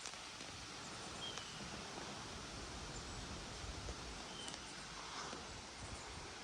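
Gusty hurricane wind rushing steadily through foliage, with low buffeting on the microphone. Two short high chirps sound over it, about three seconds apart.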